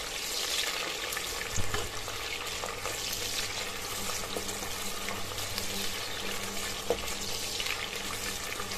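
Sliced onions sizzling in hot oil in a stainless steel pressure cooker, stirred with a plastic slotted spoon that knocks against the pot a couple of times.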